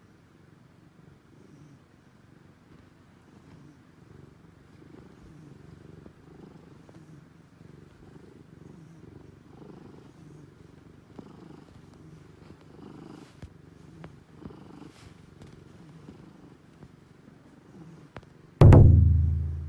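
Cat with feline asthma breathing close up, a low rattly rumble with each breath; the owner says the wheeze is much better now. About a second before the end, a sudden loud low ringing hit that fades away.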